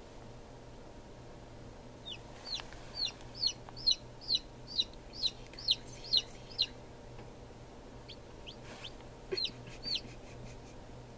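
A domestic chicken chick peeping: a run of about a dozen short peeps, each falling in pitch, about two a second, then a few fainter scattered peeps and two more near the end.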